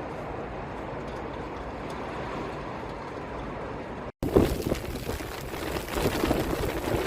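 Hurricane wind and rain, a steady rushing noise. After an abrupt cut about four seconds in, it turns louder and gustier, with crackling wind buffeting the microphone.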